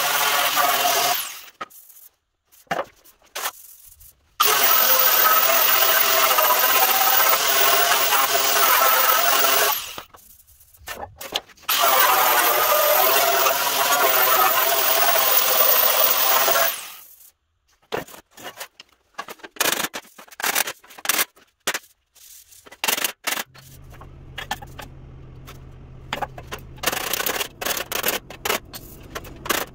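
Angle grinder with an abrasive disc grinding the bare sheet steel of a 1948 GMC pickup tailgate, in three runs of several seconds each with a high whine. After that come scattered clicks and knocks as the metal panel is handled, and a low steady hum from about three quarters of the way in.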